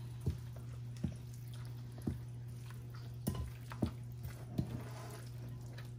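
Silicone spatula stirring shredded chicken with hot sauce and ranch dressing in a glass mixing bowl: wet stirring strokes, irregular, about one a second.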